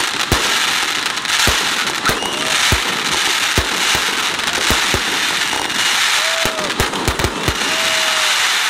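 Aerial fireworks display: a dense, continuous crackle from crackling stars, punctuated by repeated sharp booms as shells burst, about a dozen of them.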